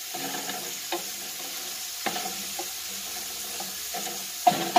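Chopped onion sizzling in a little olive oil in a large aluminium pot, with a wooden spoon stirring and scraping through it. A sharp knock comes near the end.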